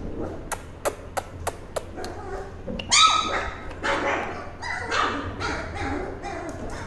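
Young Doberman puppies yipping and whimpering, with one loud, high yelp about three seconds in. A quick run of sharp clicks comes before it, in the first two seconds.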